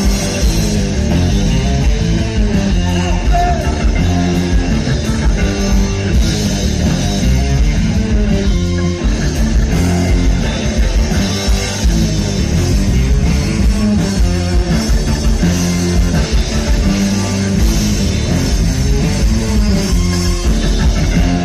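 Live rock band playing a loud passage without vocals: electric guitars, bass guitar and drums through the stage PA.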